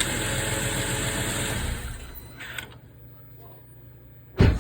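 BMW X3 xDrive35i's turbocharged inline-six running with a steady high-pitched whir from its accessory belt drive, where the belt tensioner is bad. The running stops about two seconds in, leaving a faint hum. A single heavy thump comes near the end.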